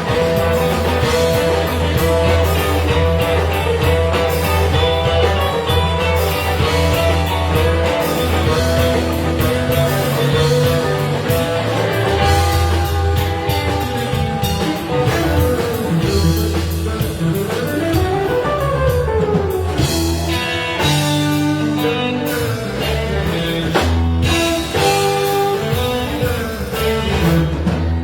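Live rock band playing an instrumental blues jam: a guitar lead over bass and drum kit, with a run of notes that climbs and falls about two-thirds of the way through.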